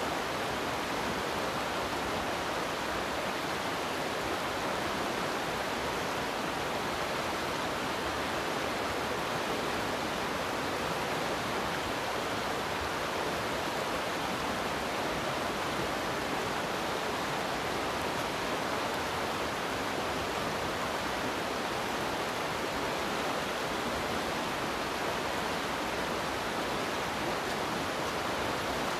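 Fast river water rushing steadily over rocks in shallow riffles: an even, unbroken rush.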